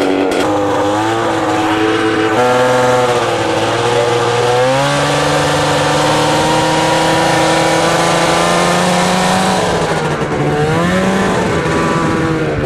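Snowmobile's air-cooled 500 two-stroke engine revving: the pitch climbs and drops a few times, holds a steady high note for several seconds, then eases off and climbs again near the end.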